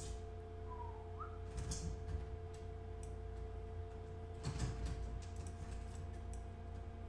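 Quiet room with a steady electrical hum and low rumble, broken by a few faint clicks, a short rising chirp about a second in, and two brief rustles, the louder one about four and a half seconds in.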